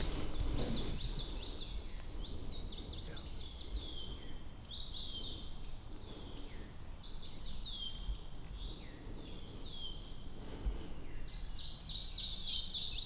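Songbirds singing: many short high chirps and quick falling whistled notes, over a low steady rumble.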